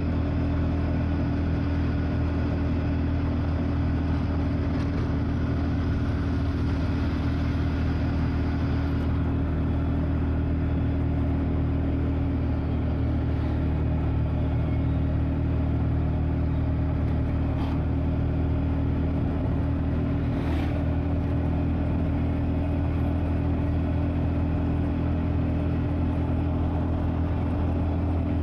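Steady engine drone and road noise of a vehicle travelling at an even speed, heard from on board, with no change in pitch or revs.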